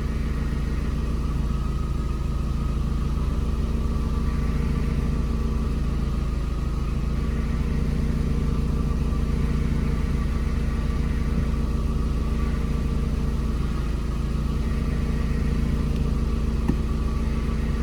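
2012 Volkswagen Gol G4 engine idling steadily, heard from inside the car, with a subtle background hum (roncado) that is the fault being shown, a noise tied to the hydraulic power steering.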